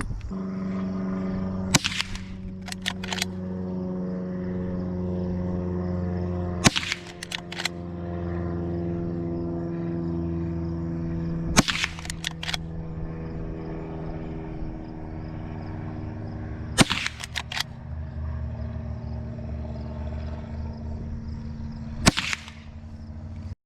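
Henry Golden Boy .22 lever-action rifle fired five times at a slow, even pace, about five seconds apart. After each of the first four shots come quick metallic clicks as the lever is worked to eject the spent case and chamber the next round.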